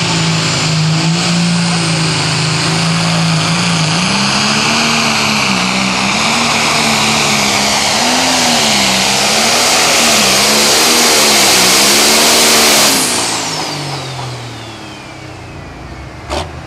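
John Deere heavy super stock pulling tractor running at full throttle under load, its pitch wavering up and down as the load changes, with a high turbocharger whine climbing over it. About thirteen seconds in the throttle is let off, and the engine and the whine fall away together at the end of the pull. A short sharp pop follows near the end.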